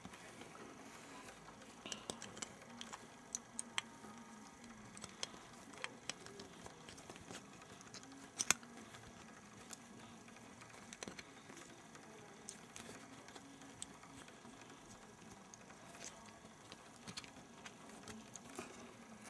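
Small plastic clicks and snaps, scattered and irregular, from a Bakugan toy being handled and its hinged parts folded and snapped shut. The loudest snap comes about eight seconds in.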